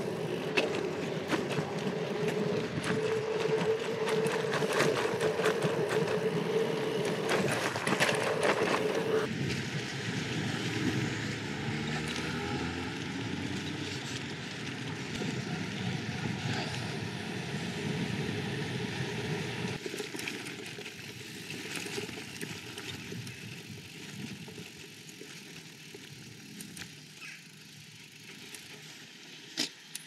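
Gravel bike riding noise: tyres rolling with rattles and clicks from the bike. About nine seconds in, the rattling stops and the sound turns smoother and quieter, fading gradually towards the end.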